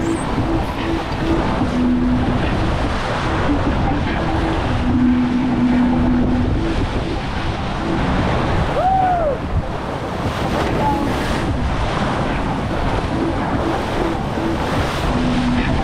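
Wind buffeting the microphone over the rush and splash of water along a sailboat's hull as it sails fast. A short squeak rises and falls about nine seconds in.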